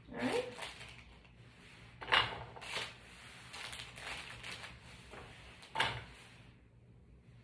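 Cucumber being put into a bowl on a kitchen scale: a few short clatters and rustles, loudest about two seconds in and again near six seconds.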